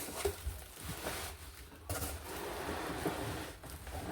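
Rustling of packaging being handled during an unboxing, a noisy rustle that grows louder about two seconds in and eases off near the end.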